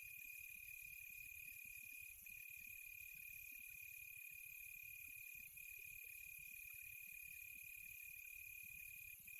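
Faint, steady insect chorus: one continuous high-pitched trill with a higher hiss of other insects above it, dipping briefly about every three seconds, over a faint low rumble.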